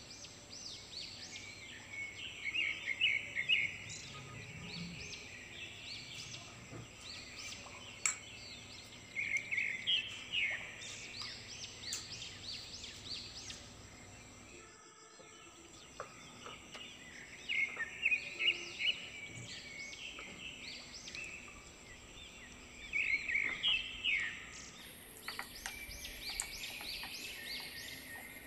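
A metal spoon scraping and clinking against a ceramic bowl while it mixes chicken pieces into a thick marinade. The squeaky scrapes come in bursts of several strokes, with pauses between them.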